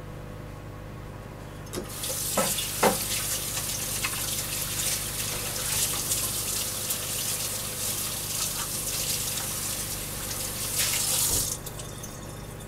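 Kitchen tap running for about nine seconds, starting about two seconds in with a few knocks and stopping near the end, as sticky honey and brown sugar are rinsed off.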